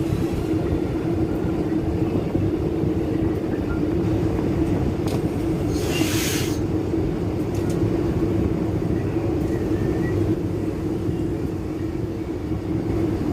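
Passenger train running, heard from inside the carriage: a steady rumble with a continuous drone. There is a short hiss about six seconds in.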